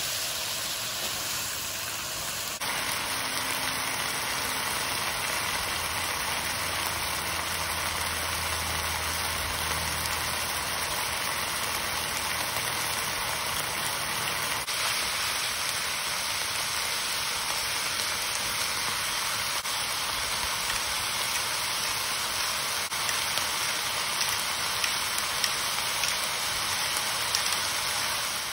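Ground beef and diced onion sizzling steadily in a frying pan as their moisture cooks off.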